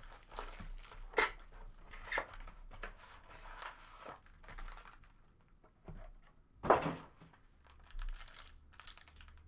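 Plastic shrink wrap being torn off a trading-card box and crinkled, followed by the cardboard box being opened and handled, with scattered sharp clicks and one sharp knock about two thirds of the way through.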